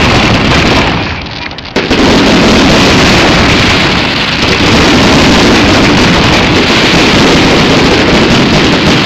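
Fireworks finale barrage: rapid aerial bursts and crackle merging into a continuous loud rumble. It eases briefly about a second in, then comes back at full strength.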